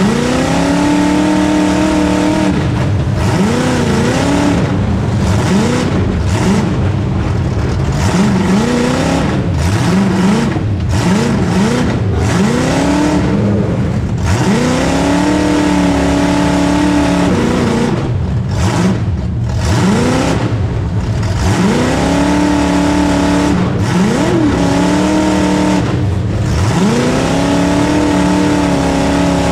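Demolition derby car's engine heard from inside the stripped car, revved hard again and again: each burst climbs to a held high pitch and then drops back, every two to four seconds.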